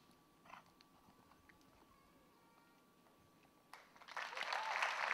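Quiet arena with a few faint ticks and a thin steady tone, then about four seconds in spectators start clapping loudly, applause at the end of the dressage test.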